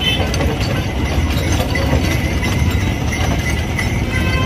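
Bullock cart rolling along a road: a steady rumble and rattle from its wheels, with the bullock's hooves clopping.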